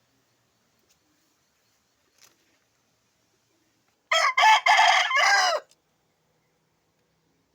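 A rooster crows once, a full-voiced crow of about a second and a half starting about four seconds in, its pitch dropping at the end: a healthy crow from a bird that has recovered from illness.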